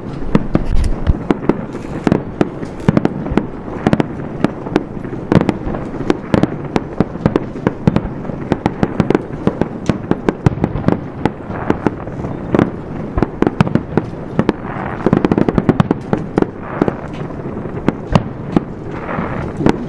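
Fireworks display: aerial shells bursting one after another in an irregular string of bangs and crackles, several a second, growing denser about three-quarters of the way through.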